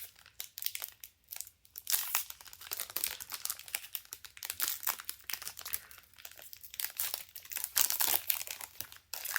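Trading-card booster-pack wrapper crinkling in the hands as it is handled and torn open: a rapid, irregular crackle.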